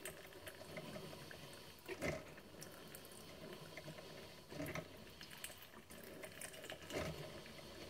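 Cuisinart Brew Central 14-cup drip coffee maker brewing its first cycle of plain water: faint steady hiss of hot water trickling and dripping into the carafe, with a few brief louder moments about two, four and a half and seven seconds in.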